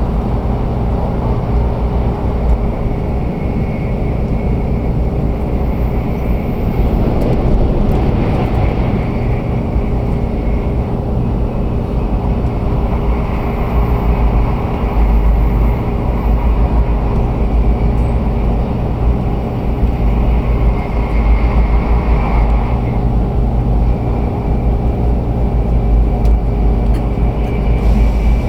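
Cabin noise of a JR 500-series Shinkansen train running on the line: a steady, loud low rumble with faint steady tones over it.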